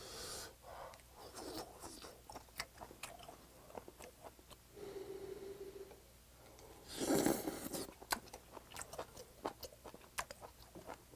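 Close-miked eating of chewy beef tripe hot pot: wet clicks and smacks of chewing throughout, a short steady hum about five seconds in, and a loud slurp of a hot mouthful about seven seconds in.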